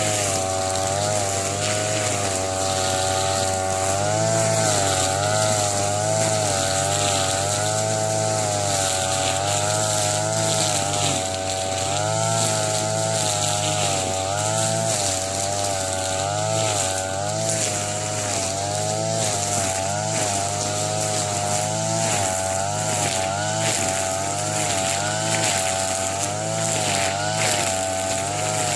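TB33 two-stroke brush cutter running at high revs, its pitch wavering up and down as the engine takes and sheds load cutting thick grass.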